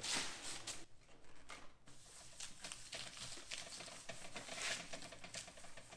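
Plastic contact paper rustling as hands spread it and rub it flat over a formica-laminated panel, in a series of soft irregular swishes.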